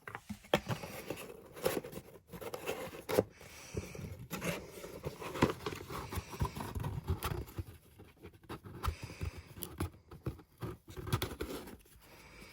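A cardboard album box and its paper contents being handled and packed back in: irregular scraping, rustling and sharp taps.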